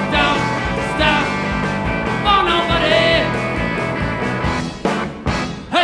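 Live three-piece rock band of electric guitar, bass guitar and drum kit playing a song between sung lines. Near the end the sound breaks into a few sharp accented hits with brief drops between them.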